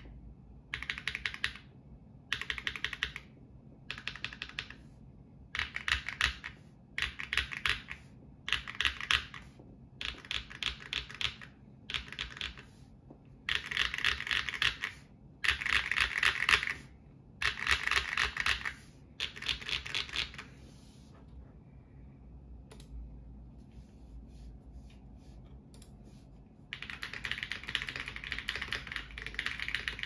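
Mechanical keyboard typing: a GAS67 with PE foam mod, lubed KTT Red Wine linear switches on 48g springs and GMK Arctic clone OEM-profile keycaps. Short bursts of keystrokes come about once a second, then a few seconds of sparse, quieter clicks, then fast continuous typing near the end.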